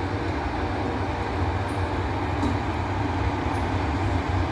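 Two FS E652 electric locomotives hauling a container freight train past, a steady rolling rumble of wheels on the rails with a few faint clicks.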